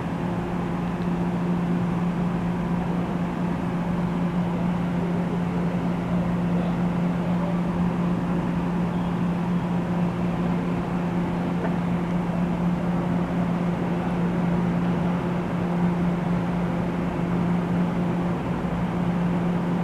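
NJ Transit Multilevel cab car standing at the platform with a steady low electrical hum from its onboard equipment, one unchanging drone with fainter higher tones above it.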